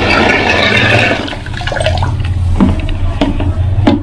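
Water churning and splashing in a plastic tub around the underwater muzzle of a pneumatic speargun during a test shot, the rush fading about a second in. Three short knocks follow near the end, over a steady low hum.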